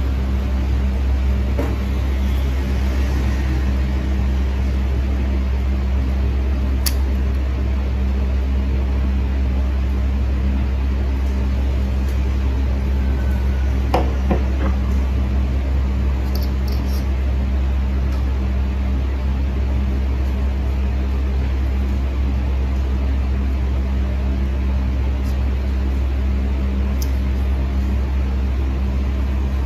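A steady low mechanical hum, unchanging throughout, with a few faint clicks and taps; the plainest is about halfway through.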